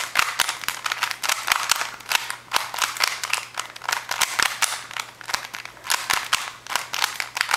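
Rubik's Cube being turned fast, its plastic layers clicking and clacking several times a second in an irregular run of turns.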